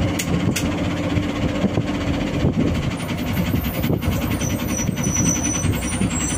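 Ashok Leyland BS-6 diesel bus engine running with a steady low rumble. There are a few sharp clicks near the start, and faint high-pitched tones come and go in the second half.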